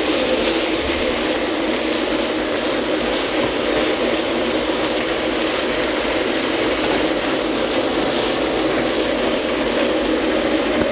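Pork mince and diced tomatoes sizzling in a frying pan: a steady, even crackling hiss.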